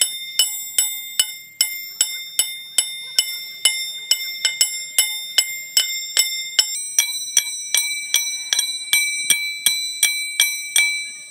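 Evenly paced ringing metallic strikes, about two and a half a second, each leaving a bright bell-like tone; the tone shifts slightly higher about seven seconds in, and the strikes stop abruptly near the end.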